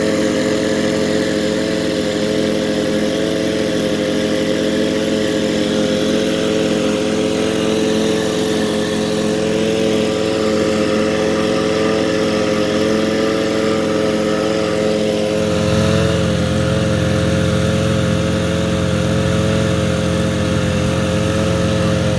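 Outboard motor running at a steady, unchanging throttle, a constant hum with a clear pitch, while pushing its boat and towing a second boat. A low rumble joins about fifteen seconds in.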